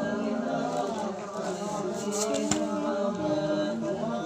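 Singing voice with music, held sung notes running throughout, and a brief click about two and a half seconds in.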